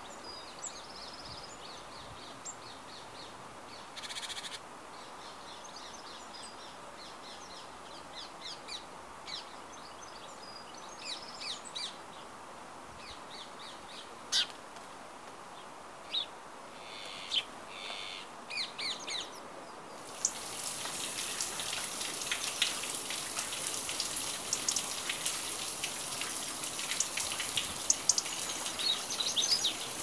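Wild birds calling and chirping, short scattered calls. About two-thirds of the way in, a steady rushing hiss of a small waterfall comes in beneath the bird calls.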